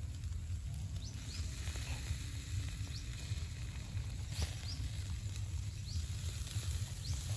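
Pork and a pig's head sizzling on a wire grill over a charcoal fire, an even hiss broken by scattered sharp crackles and pops as sauce is brushed onto the hot meat. A steady low rumble runs underneath.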